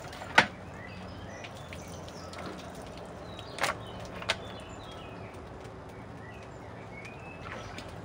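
Small birds chirping over a steady outdoor background, with three sharp knocks from a wooden chopping board and pork being handled on a metal stand: the loudest about half a second in, two lighter ones around three and a half and four seconds in.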